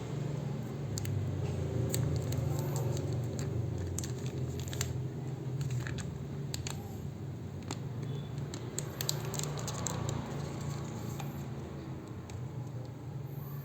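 Scattered small clicks, taps and rattles of objects being handled, over a steady low hum.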